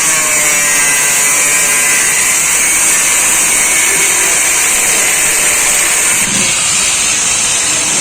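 Handheld power tool running under load on metal, a steady loud hissing grind. Its motor whine sags in pitch at the start, then holds level.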